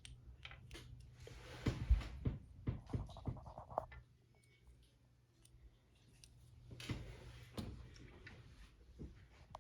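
Small plastic construction-kit parts being handled and fitted together: scratchy rustling with taps and clicks, including a quick run of clicks about three seconds in, then a short lull before more taps.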